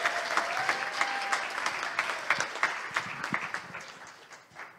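Congregation applauding, the clapping dying away near the end. A thin steady tone sounds over it for about the first second and a half.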